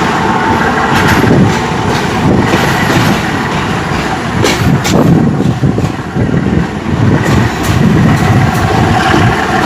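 Passenger train running along the track: a loud, continuous rumble of wheels on rails with irregular clicks and knocks.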